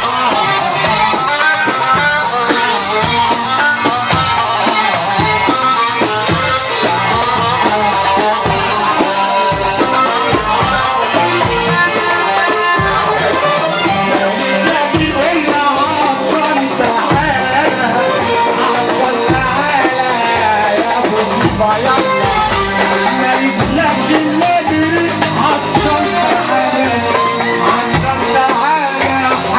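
Egyptian wedding music in an instrumental passage: a winding melody line over hand percussion with jingles, loud and steady throughout.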